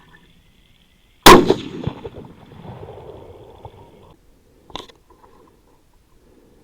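A single rifle shot about a second in, its report rolling away and fading over the next few seconds. Just before five seconds there is a short, much quieter click.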